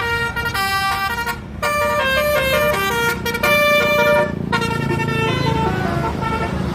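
Basuri bus horn playing a fast telolet melody of stepped, held notes, with short breaks about a second and a half in and again about four and a half seconds in, over a low rumble.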